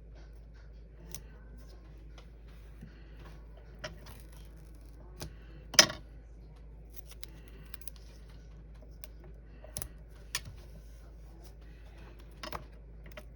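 Small craft scissors snipping foam tape, with paper and tape being handled between cuts: scattered short sharp clicks and snips, the loudest about six seconds in.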